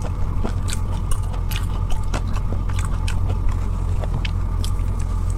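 A person biting and chewing food close to the microphone, with many small sharp clicks and crunches, over a steady low hum.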